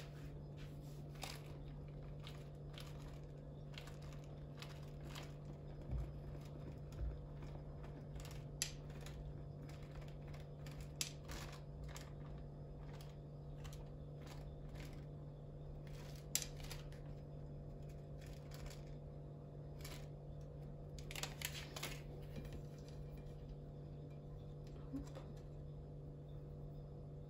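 Small plastic packet rustling and sugar-pearl sprinkles being shaken out and pressed on by hand, heard as scattered soft clicks and crinkles over a steady low hum.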